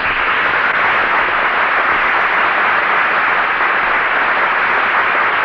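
Studio audience applauding: a steady, dense clapping with no music or voices over it, heard on a 1952 radio broadcast recording.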